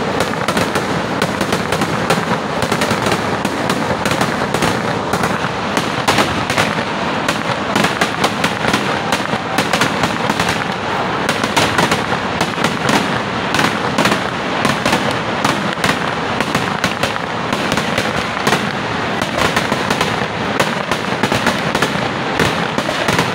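Kerala vedikettu festival fireworks: a dense, unbroken barrage of bangs and crackling from aerial shells and ground fireworks, many reports a second.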